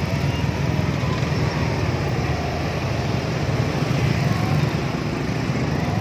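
Yamaha R15 single-cylinder engine running steadily at low speed in slow traffic, a low rumble picked up close to the exhaust from the rear plate holder. Other motorbike engines run around it.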